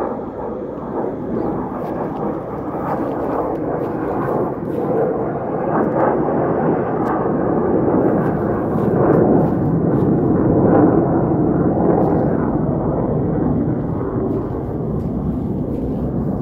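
Jet engine noise from fighter jets flying overhead: a continuous rumbling rush that builds to its loudest about two-thirds of the way through, then eases off slightly.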